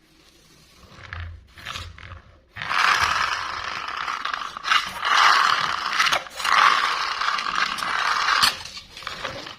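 Plastic toy mechanism clicking and scraping, a rattly ratchet-like sound that starts a little over two seconds in and goes on unevenly with a few sharper clicks.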